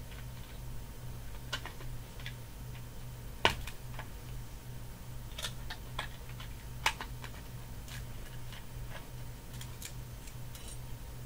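Small plastic Lego pieces clicking and tapping as they are picked through and handled, in irregular clicks with two sharper knocks a few seconds apart. A steady low hum runs underneath.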